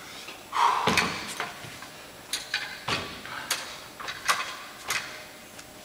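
Metal adjustable dumbbells knocking and clanking as they are put down and handled on a mat over a hardwood floor: a string of sharp knocks about half a second to a second apart, the loudest about a second in.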